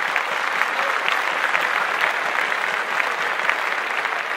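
Audience applause: many people clapping at once, holding steady throughout.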